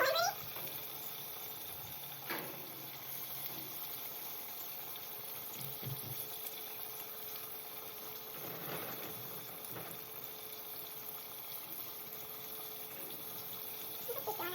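Chicken pieces deep-frying in hot oil, a steady sizzle with a brief click about two seconds in.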